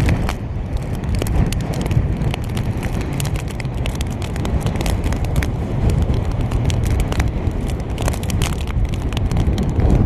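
Hurricane wind buffeting the microphone with a heavy low rumble, and many sharp irregular ticks of rain striking the camera's waterproof case.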